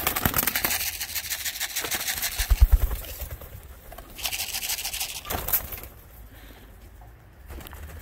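Domestic pigeons at a wire loft trap, with the flutter of wings in two spells of rapid beating, at the start and again from about four to five and a half seconds in. A short low thump comes about two and a half seconds in.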